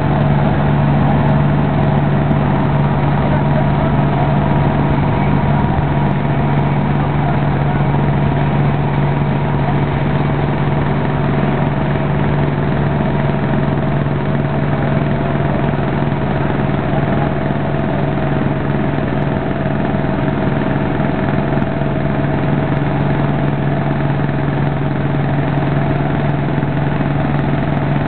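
Small Cub Lo-Boy tractor engine running at a steady speed under load as it drags a weight-transfer pulling sled.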